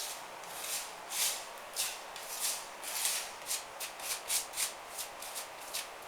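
A metal plastering trowel scraping plaster in repeated rasping strokes, about two a second at first, then shorter and quicker after the middle.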